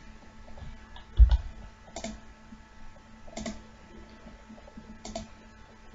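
A few separate computer keyboard and mouse clicks, spaced a second or more apart. The loudest, about a second in, has a dull low thud.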